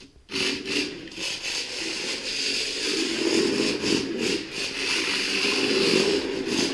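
Tiny electric drive motor and gears of a 10 cm Drift Package Nano RC drift car running as it is driven around, starting suddenly about a third of a second in and going on steadily with small rises and dips in speed.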